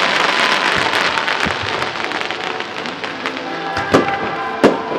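Fireworks display: a dense crackling of bursting stars that thins out over the first few seconds, with shell bursts banging about a second in and twice more, loudest, near the end.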